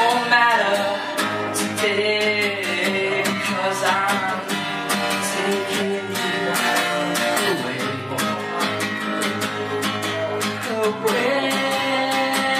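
Live solo acoustic performance: a man singing with a strummed acoustic guitar.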